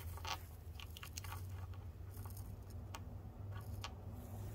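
Light clicks and taps of small garnets and rock chips being picked up and set down on a wooden tabletop by a gloved hand, over a low steady hum.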